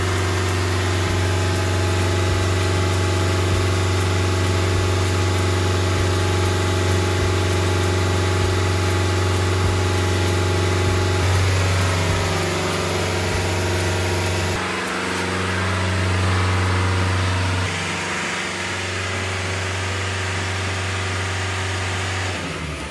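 Diesel engine of a fire hydrant pump set running steadily at speed during its test run, having started automatically when the system pressure was dropped. It winds down right at the end as it is shut off from the pump controller.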